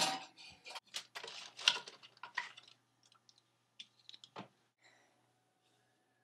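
Small wooden box with a hinged lid being opened and rummaged through: a sharp knock as it opens, then a quick run of clicks, knocks and rustles, loudest in the first couple of seconds, thinning to a few scattered taps and a duller knock about four seconds in.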